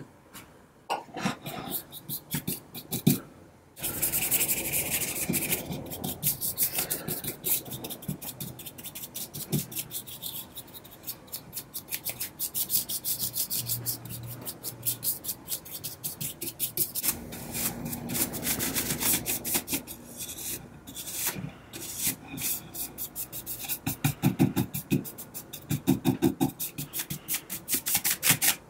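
Paintbrush bristles scrubbing on a turned wooden chair spindle in rapid back-and-forth strokes, brushing on wood stain.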